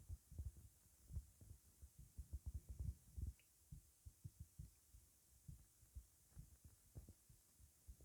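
Upset stomach rumbling and gurgling: a quiet, irregular string of low pops and gurgles, busiest in the first three seconds and sparser after. The sign of a gassy stomach.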